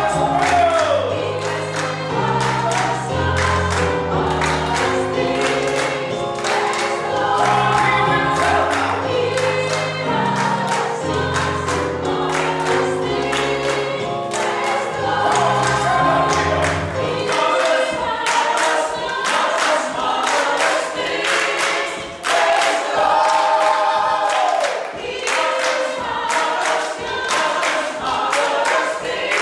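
Gospel choir singing with hand claps on the beat and keyboard accompaniment. The low bass line drops out about two-thirds of the way through, leaving voices and claps.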